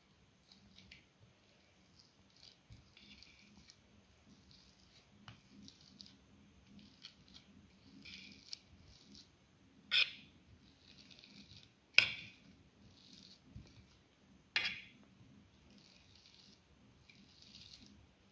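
Boiled potatoes being mashed on a plate with a hand potato masher: faint soft squishing and pressing, with three sharp knocks in the second half, about two seconds apart.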